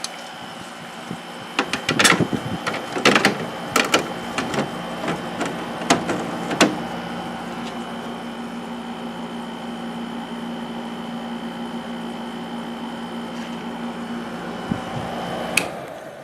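Vintage Amana 6600 BTU window air conditioner running with a steady hum, with a run of clicks and rattles in the first several seconds. Near the end a sharp click comes and the hum drops away.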